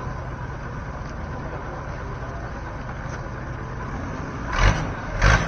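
Longtail boat engine running steadily under a wide hiss, with two brief loud bursts near the end.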